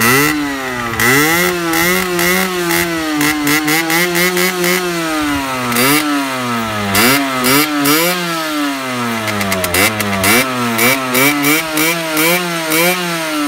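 Warm Sherco 50cc two-stroke motorcycle engine being revved while standing, its pitch rising and falling over and over: a held rev with wavering pitch for the first few seconds, then a series of short, quick throttle blips, about one a second, in the second half.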